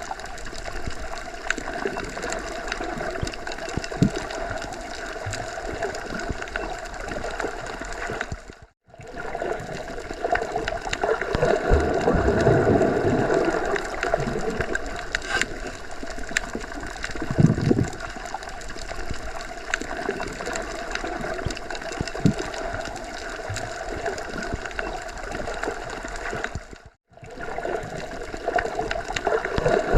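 Underwater ambience: a steady muffled wash of water with swelling gurgles and occasional low thumps. It cuts out briefly twice, about 9 and 27 seconds in.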